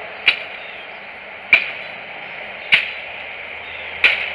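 Four sharp chops of an 18-inch Imacasa 1075 carbon-steel machete slicing through brush stems, about one every 1.2 seconds, its freshly filed edge cutting clean through.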